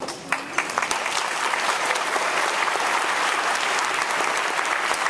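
Audience applauding: the clapping swells within the first second, then holds steady as a dense patter of many hands.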